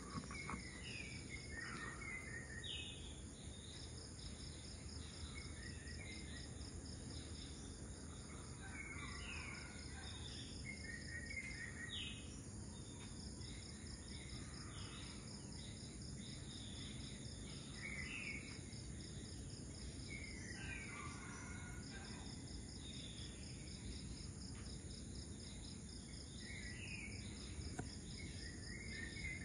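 Outdoor ambience of insects shrilling steadily, one of them in a fast pulsing trill, with birds calling in short clusters of rising and falling notes every few seconds, over a low steady background hum.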